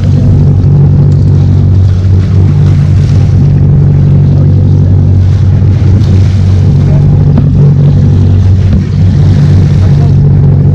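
Boat engine running steadily close to the microphone, a loud, even low hum.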